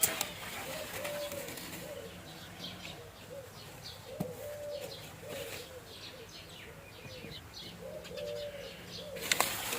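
A dove cooing in short repeated phrases, with small birds chirping in the middle. A few sharp clicks or rustles come at the very start and again near the end.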